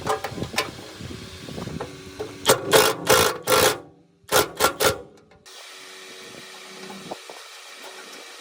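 Workshop tool noises: scattered knocks, then a run of loud strokes and three more after a short pause. A steady, quieter machine hum follows after about five seconds.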